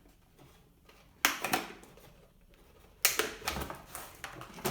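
Two sharp snaps, about a second in and about three seconds in, each followed by plastic clattering and rustling as the RC truck is freed from its box packaging.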